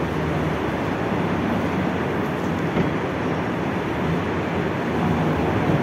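Diesel engine of a heavily loaded bulk cement tanker truck running steadily under load as the truck creeps forward over soft gravel ground.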